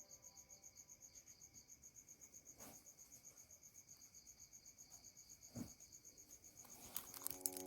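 Near silence with a faint, high-pitched chirring that pulses about seven times a second, like an insect. There are two soft knocks, one a little before the middle and one near the end.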